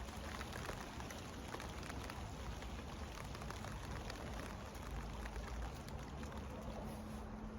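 Light rain falling, with many small drops ticking irregularly.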